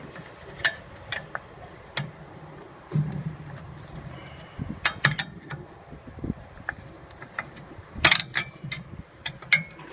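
Irregular sharp clicks and light metallic knocks, a dozen or so spread unevenly, from hand tools and fittings being handled on the heat pump, with a cluster of louder clicks about eight seconds in.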